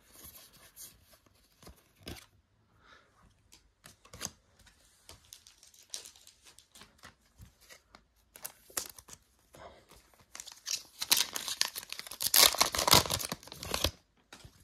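Foil wrapper of a Kayou Naruto trading-card pack being torn open and crinkled, loudest for about three seconds near the end; before that, light handling of cards and packs.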